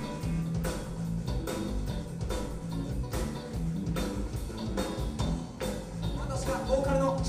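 Live rock band playing: a drum kit keeps a steady beat under electric guitars. A voice comes in near the end.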